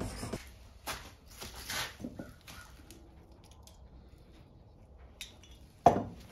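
A plane iron rubbed on a diamond sharpening plate stops just after the start. A few short clatters of handling follow, then a single loud knock near the end.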